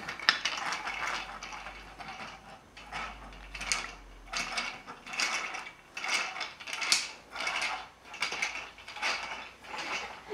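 Pull-along toy rabbit dragged across carpet on its string, its internal mechanism clicking and ratcheting in short, uneven bursts, about one or two a second.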